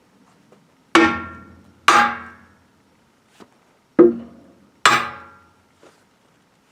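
Four hammer blows on a steel split wheel rim, in two pairs, each ringing out briefly after the strike.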